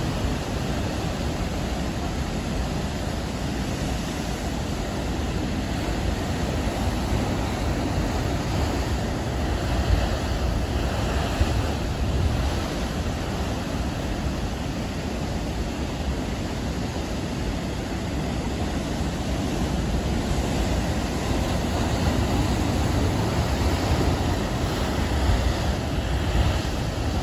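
Heavy ocean surf surging and crashing into a rocky shoreline, a steady churning rush with seawater pouring off the rock ledges.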